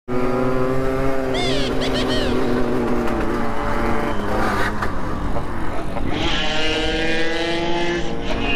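Motorcycle engine running under way, its pitch drifting up and down, with a shift about six seconds in.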